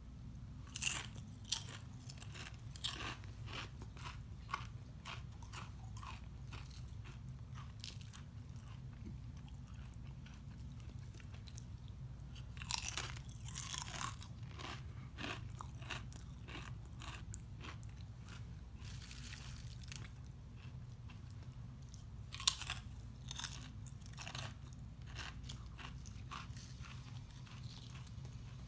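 Quest protein potato chips being bitten and chewed close to the microphone: sharp crunches about a second in, again around halfway, and again a little over three quarters of the way through, with quieter chewing in between. A steady low hum runs underneath.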